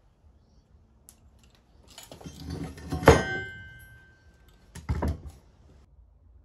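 Metal parts clanking on a wooden workbench as an electric motor is lifted off its steel mounting bracket. There is a scraping clatter, then one sharp metallic clank that rings on briefly, and then two knocks near the end.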